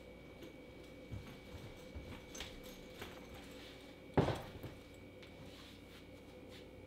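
A few light knocks and steps, then a single loud thump about four seconds in as a packed rolling suitcase is set down upright.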